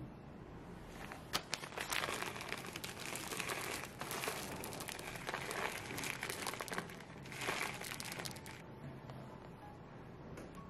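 Plastic bag of chocolate chips crinkling and rustling as the chips are poured out onto the frosted cake, starting about a second in and stopping about two seconds before the end.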